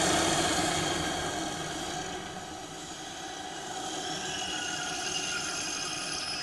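Steady mechanical noise like a train or engine, with high thin screeching tones above it, starting abruptly and running evenly. It is a comic sound effect standing in for very loud snoring.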